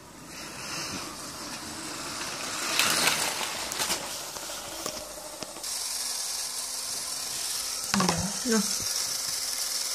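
A motorised LEGO train rattling along its plastic track, the noise building as it comes close and loudest as it passes about three seconds in. A steady hiss follows, with a few knocks and a brief pitched squeak about eight seconds in.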